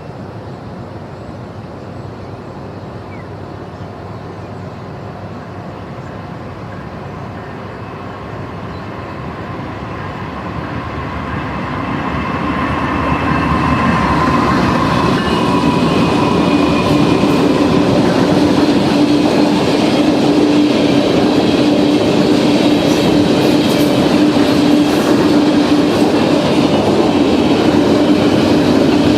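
Norfolk Southern freight train approaching, growing louder from about ten seconds in until it is passing close, with a steady locomotive hum and the running noise of wheels on rail.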